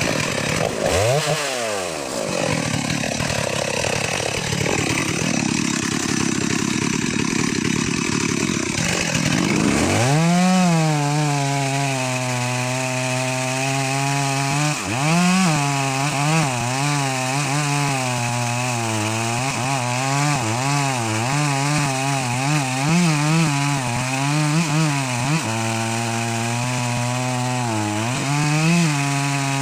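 Two-stroke chainsaw running and cutting wood, its engine pitch dipping and recovering again and again as it works through the cut. The first ten seconds are a rougher, noisier stretch before the steady engine note takes over.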